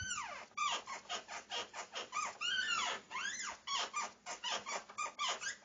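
Squeaky door hinge creaking as the door is worked back and forth: a quick run of short squeaks, each rising and falling in pitch.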